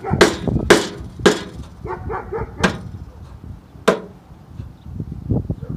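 Hammer striking a screwdriver held as a chisel against the spot welds of a steel car frame mount, to break them loose. There are six sharp metallic blows at uneven intervals, with lighter taps between them, over low wind rumble on the microphone.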